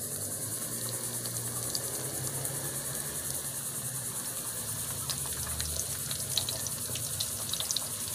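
Breaded shrimp deep-frying in hot oil in a pan: a steady sizzling hiss with scattered small crackling pops, more of them in the second half.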